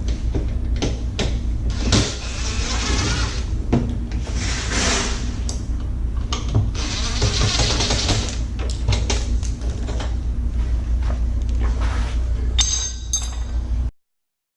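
Hand-tool and power-tool work on a door's panic-bar lock: repeated clicks, knocks and metal clatter with a few bursts of whirring, over a steady low hum. It cuts off suddenly near the end.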